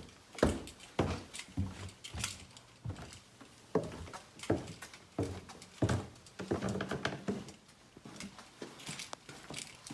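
Footsteps on a hard floor, a steady run of thuds a little faster than one a second.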